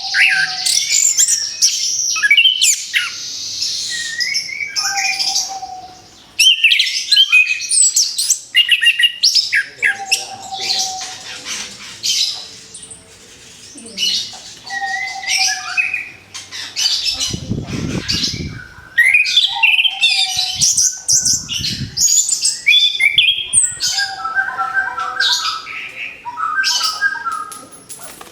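Orange-headed thrush (anis kembang) singing: rapid, varied, high whistled phrases broken by short pauses. A low rumble runs for a couple of seconds midway.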